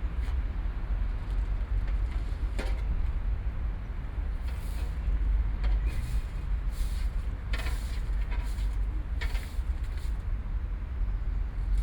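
City park ambience: a steady low rumble of distant road traffic, with a handful of short, high-pitched sounds scattered through it.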